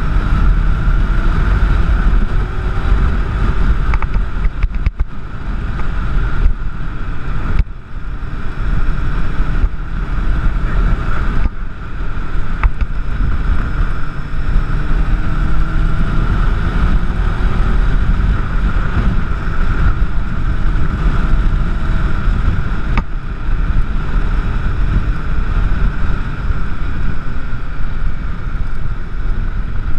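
Wind rumbling on the action camera's microphone on a moving Honda CBR600F motorcycle, with the bike's inline-four engine note rising and falling underneath. The sound drops briefly a few times.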